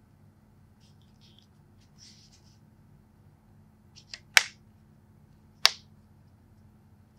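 Leather case of a FiiO M17 portable player being handled and pried off: faint rustling of fingers on the case, then sharp snapping clicks, a small one followed by a loud one about four seconds in and another loud one about a second later.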